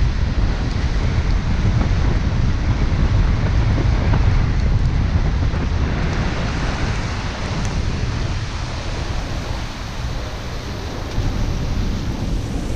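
Car driving on rain-wet city streets: a steady low rumble with the hiss of tyres on wet pavement, and wind buffeting the microphone.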